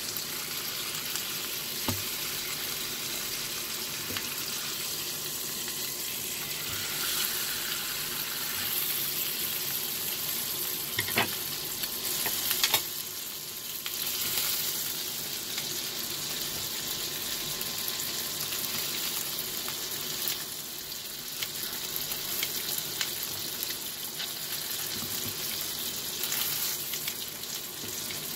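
Ribeye steak searing in butter in a skillet, a steady sizzle throughout. A few sharp clicks of metal utensils against the pan as the steak is handled, the loudest ones a little past the middle.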